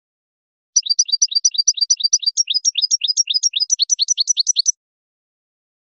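European goldfinch singing a fast trill in the Wedani song style, about eight quick downward-sweeping notes a second, high-pitched. It starts about a second in and cuts off suddenly after about four seconds.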